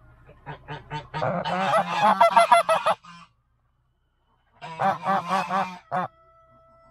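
Domestic goose honking in two rapid series of harsh calls, the first building up from about half a second in and the second near five seconds in, with a pause between. It is the sound a goose makes while brooding its eggs.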